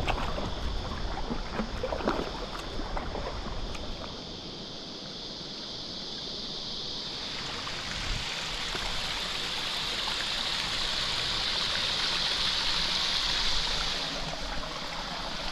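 Creek water running over rocks and into pools: a steady rushing hiss that builds about halfway through and holds. Before it comes in, a few light water splashes with wind rumbling on the microphone.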